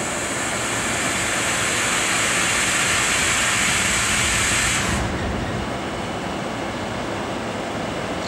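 Freight train hauled by a VL60K electric locomotive running into the station with a steady rumble. A loud hiss sounds over it for about the first five seconds and cuts off suddenly.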